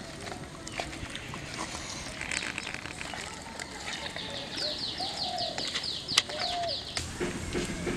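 A small bird singing a fast trill of about a dozen short, falling high notes, about five a second, starting about halfway through and lasting a little over two seconds, over outdoor background noise with a few light clicks.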